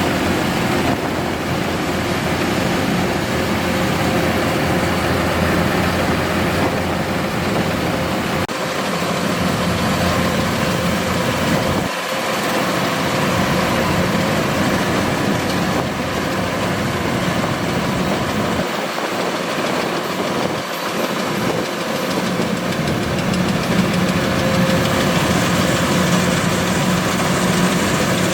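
Kubota DC-105X combine harvester running steadily, its diesel engine and machinery giving a continuous loud drone.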